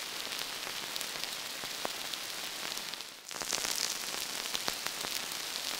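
Synthesized rain from the Arturia ARP 2600 V software synth: a steady hiss dotted with droplet-like clicks. It is made by ring-modulating the first two oscillators, with no noise generator and no reverb. It dips briefly about three seconds in, then swells again.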